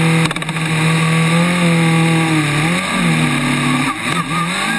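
Formula Student race car's engine, heard from on board, held at steady revs and then pulling away from the start. A few sharp clicks come about a third of a second in, and the engine note then climbs and drops back as the car accelerates.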